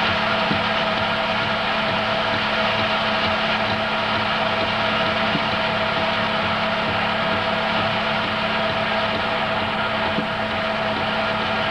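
Home-movie film projector running: a steady mechanical whirr with a constant electrical hum underneath.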